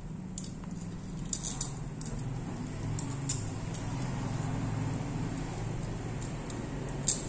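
Light metallic clicks and taps as a stainless-steel nozzle is handled and fitted onto a hot air gun's barrel, a few scattered clicks over a steady low hum.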